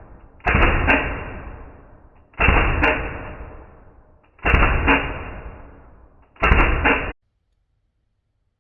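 Airsoft pistol shots played back in slow motion: four stretched-out, lowered bangs about two seconds apart, each fading away slowly. The last is cut off suddenly.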